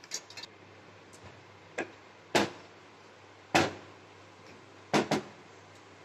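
Wooden rolling pin knocking against a stainless-steel worktop while rolling out a thin dough wrapper: a few sharp clacks, the loudest about two and a half and three and a half seconds in, then a quick double knock near five seconds as the pin is set down.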